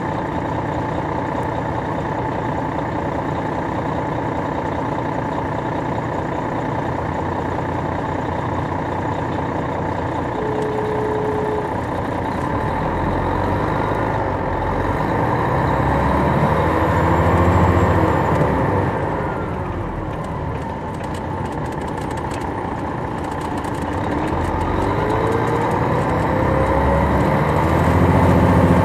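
Detroit Diesel Series 60 inline-six diesel of an MCI D4000 coach heard from the rear of the cabin, running under way with road noise and rattles. The engine pitch climbs to a peak about two-thirds of the way in, falls back, then climbs again near the end as the bus accelerates.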